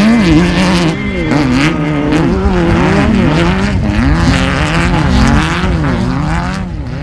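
Off-road race buggy engine revving hard, its pitch rising and falling every second or so as the throttle works. It starts to fade out near the end.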